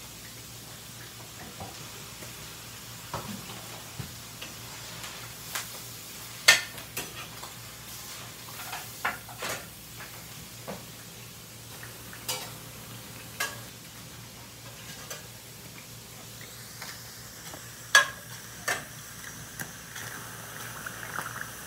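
Shredded beef and tomato frying in a pan, a faint steady sizzle, while a utensil stirs it, scraping and clinking irregularly against the pan with two louder knocks, about six and a half and eighteen seconds in.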